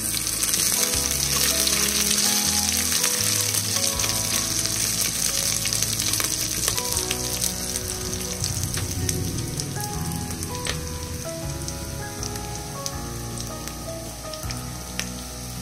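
Sliced onions, dry red chillies and garlic sizzling and crackling in hot oil in a pressure cooker during the tempering for dal. The sizzle is loudest at first and slowly eases off.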